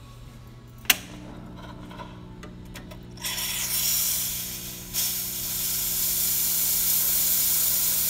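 Quickmill Silvano espresso machine's steam wand being opened. A click about a second in is followed by a low machine hum, and from about three seconds in strong steam hisses steadily, with a brief dip near five seconds.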